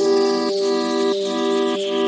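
Background music: held synth chords that change about every half second, with a high tone gliding slowly downward underneath.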